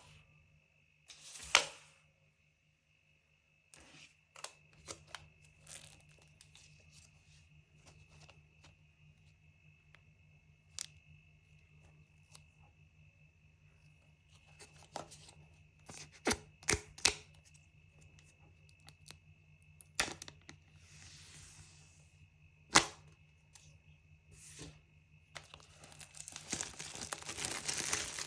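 Apple Pencil (2nd generation) packaging being handled and opened: scattered sharp clicks and taps of the box and its parts, a short tear about a second and a half in, and steady crinkling of wrapping near the end.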